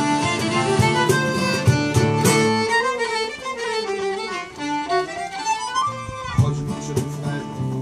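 Acoustic folk band playing an instrumental passage: a fiddle melody over accordion and strummed acoustic guitars. The guitar strumming drops out a little under three seconds in, leaving the fiddle line to wind up and down on its own, and comes back in about a second before the end.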